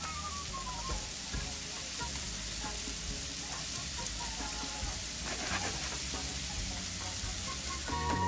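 A breaded patty and sliced mushrooms sizzling as they fry in oil in a skillet, with quiet background music underneath.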